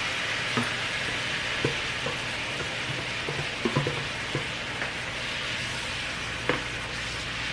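Vegetables sautéing in oil in a pan, sizzling steadily, with a few light clicks of a utensil stirring against the pan.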